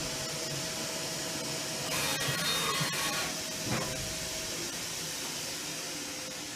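Leadwell V-50L CNC machining centre running, a steady hum and hiss. About two seconds in there is a louder, busier stretch for about a second, and just under four seconds in there is a short knock.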